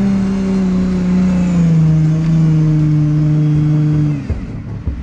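Jeep Wrangler engine running hard at steady high revs as it drives up a muddy rut; the pitch drops a step partway through, and the revs fall off sharply about four seconds in.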